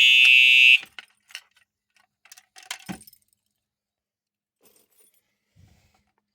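Simplex first-generation TrueAlert 4901-9820 fire alarm remote horn sounding a steady, pretty loud tone that cuts off suddenly under a second in. After it, keys jangle and click at the pull station, ending with a knock about three seconds in.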